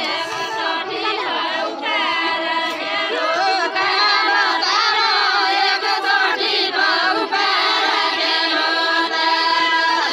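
A group of women singing a deuda folk song together, unaccompanied, their many voices overlapping and holding long notes.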